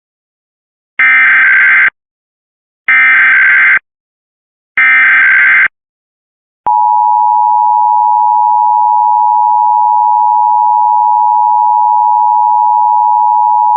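Emergency Alert System header: three one-second bursts of SAME digital data tones, about a second apart, followed about halfway through by the steady two-tone EAS attention signal, which holds on unbroken.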